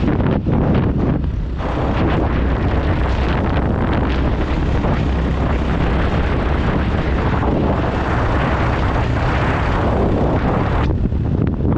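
Wind buffeting the microphone on a moving motorcycle, a loud continuous rush with a deep rumble, over the bike's engine and road noise.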